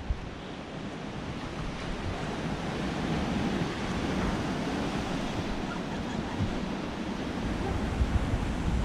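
Sea surf washing and breaking against a rocky cliff base, a steady rushing of water, with some wind on the microphone.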